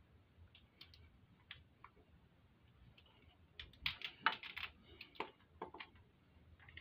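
Faint metallic clicks of a hand wrench working the tappet-block fasteners on a motorcycle V-twin: a few scattered clicks, then a quick run of sharper clicks a little over halfway through and a few single ones after.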